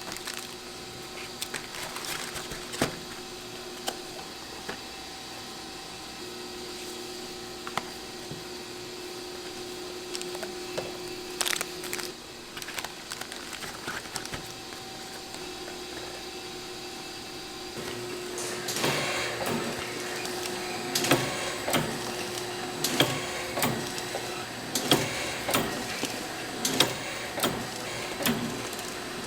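Processing machinery running with a steady hum and scattered clicks and knocks, turning into busier, irregular clatter about two-thirds of the way through.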